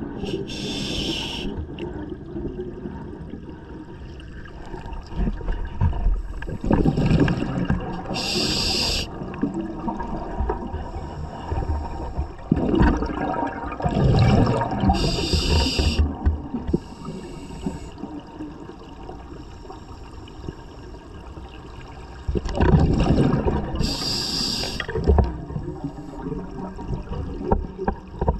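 Scuba diver breathing underwater through a regulator: a short hiss as each breath is drawn through the demand valve, followed by a bubbling gush of exhaled air, about four breath cycles.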